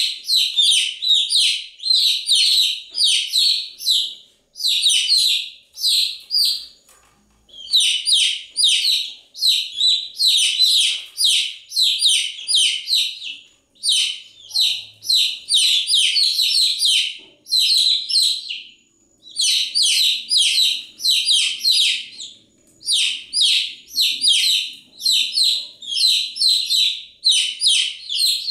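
Baby chicks peeping continuously: rapid, high-pitched chirps in bouts of a few seconds, broken by brief pauses.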